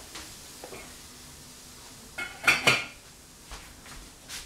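A metal utensil clinks against a metal pan in a short cluster of strikes a little past halfway, with a brief metallic ring after them.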